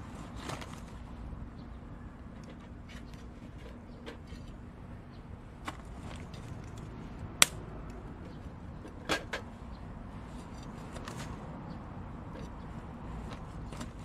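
Small wood-kindling fire crackling in a thin steel folding mini stove, with scattered small pops. Lumps of charcoal being set on it with metal tongs: a sharp clack about halfway through and a double knock about a second and a half later.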